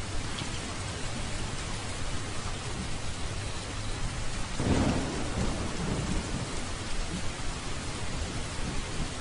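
Steady rain falling, with a low roll of thunder swelling about halfway through and fading over a second or two.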